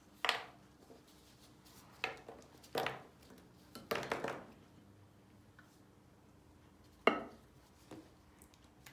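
Bottles, containers and utensils being handled on a tabletop: about six separate knocks and clatters, some coming close together, as ingredients are picked up, set down and tapped against a bowl.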